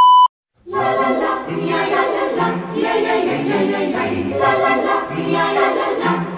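A steady 1 kHz test-card beep cuts off just after the start. After about half a second of silence, a choir starts singing a cappella and keeps going.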